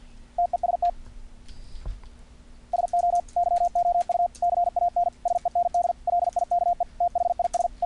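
Morse code sidetone from the CWtype software keyer on a computer: a single steady-pitched tone keyed on and off in dits and dahs. A short group comes about half a second in, then continuous sending from about three seconds in. Faint clicks accompany the sending.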